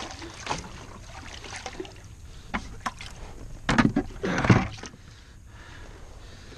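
Plastic bucket dipped into the water alongside a kayak and lifted back in full: water splashing and sloshing, loudest about four seconds in, with a few light knocks.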